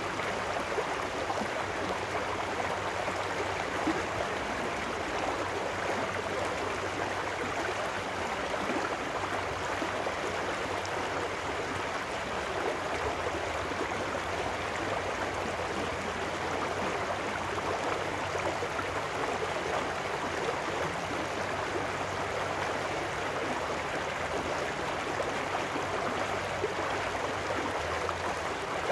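Shallow trout stream rushing and splashing over rocks in a riffle, a steady, even flow of water.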